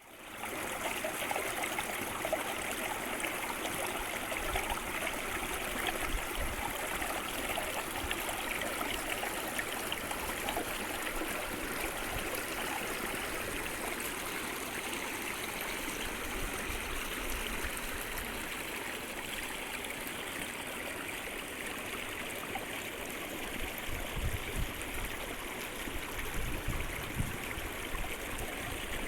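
A small creek flowing steadily, a continuous babble of water running over rocks.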